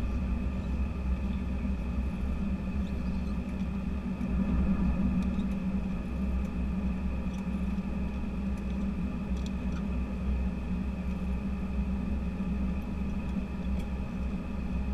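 Cabin noise of an Airbus A319 taxiing with its CFM56 turbofans at idle, heard inside the cabin: a steady low rumble under a steady engine hum with several held tones, and a few faint ticks.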